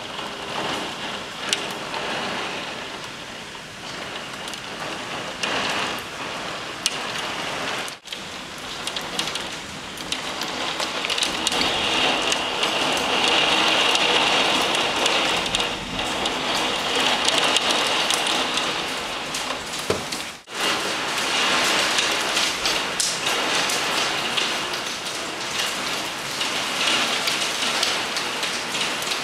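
Heavy thunderstorm downpour: a dense, steady hiss of rain with close drops tapping and splashing on surfaces. It grows louder about a third of the way in, and cuts out for a split second twice.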